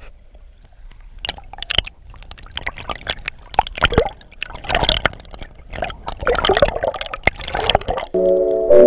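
Water sloshing and bubbling against an underwater camera in its housing as it moves through the sea surface, in irregular short bursts of splashing.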